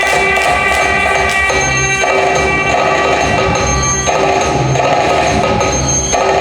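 Dance music playing loud and steady: a regular percussion beat under held instrumental tones.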